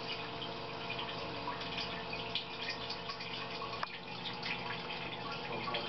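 Liquid running and dripping into a metal wash sink: a steady splashing trickle with scattered drips. A single sharp click a little under four seconds in.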